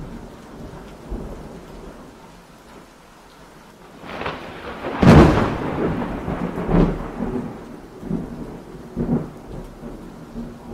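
Thunderstorm: steady rain with a loud thunderclap about five seconds in, followed by several rumbles of thunder.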